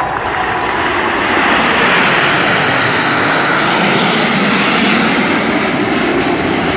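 Jet noise from a nine-plane formation of CT-114 Tutor jets (the Snowbirds) flying overhead, a rushing roar that swells over the first couple of seconds as they pass and then holds steady.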